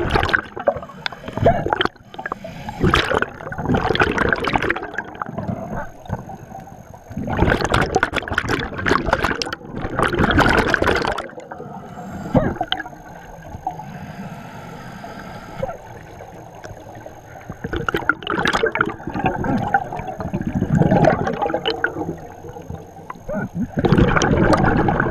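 Scuba diver breathing through a regulator underwater: long surges of exhaled bubbles gurgling out, with quieter stretches between breaths. A few short sharp sounds fall among them, the diver's hiccups.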